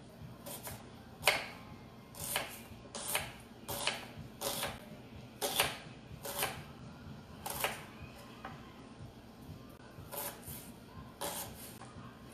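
Kitchen knife cutting a yellow onion on a wooden cutting board: about a dozen sharp knife strikes on the board, roughly one a second, the loudest a little over a second in.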